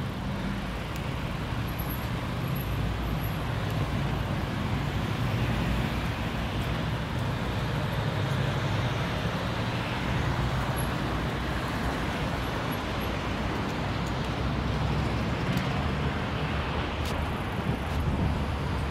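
Steady city road traffic noise, cars passing on the road alongside, an even rumble with no single vehicle standing out.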